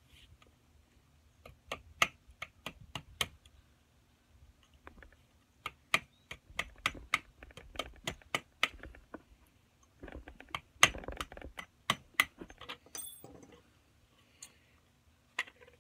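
Hammer tapping an Allen wrench used as a punch to drive a stuck cotter pin out of a pool backwash valve rod: a run of sharp, irregular taps, two or three a second, in bursts.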